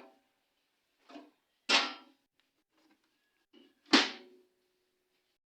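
Microwave oven door and a container of water being handled: a few separate clunks and knocks, the two loudest about two seconds apart, the last leaving a short ringing.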